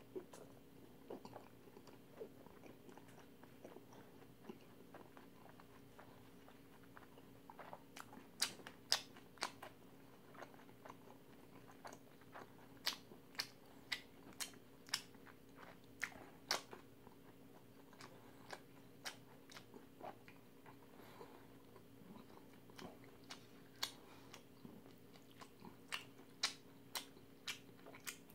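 Close-up chewing, with irregular sharp crunches and clicks in several clusters, of crisp battered sweet-and-sour pork (tangsuyuk), over a faint steady hum.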